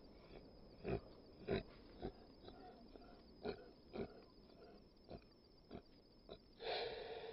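American Bully dogs breathing hard in short, irregular grunting breaths while tied in a mating tie, with a longer, louder rush of breathy noise near the end.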